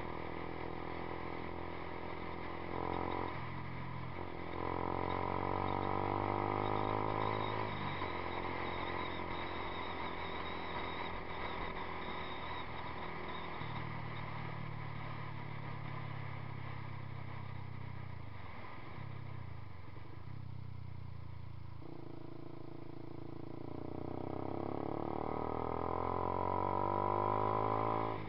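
Yamaha YZF-R15's single-cylinder four-stroke engine breathing through a Two Brothers Racing aftermarket exhaust, under way. The revs climb and the note grows louder a few seconds in and again near the end, with sudden drops in pitch between, as on gear changes.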